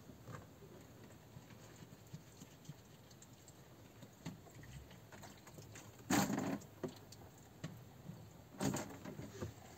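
Rummaging through a storage shelf: faint scattered clicks and rustles of things being moved about, with two louder knocks, about six seconds in and again near the end.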